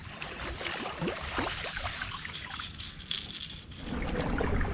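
Light clicks, taps and rattles of gear being handled on a plastic fishing kayak. A steady low rumble comes in near the end.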